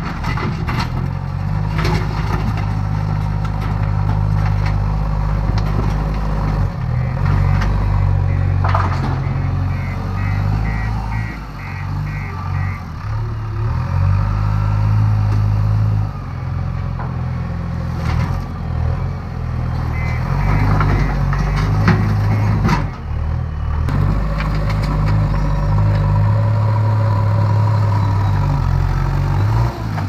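JCB 3DX backhoe loader's diesel engine running under changing load as the front loader bucket scoops, pushes and dumps soil, with scattered clanks and knocks. A reversing alarm beeps in two short runs while the machine backs up.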